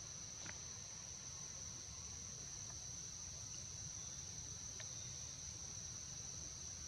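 Steady high-pitched chorus of forest insects, droning without a break, with two faint ticks, one about half a second in and one near the five-second mark.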